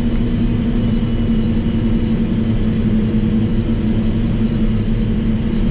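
Heavy farm machine's diesel engine running steadily, a constant low hum with no change in speed.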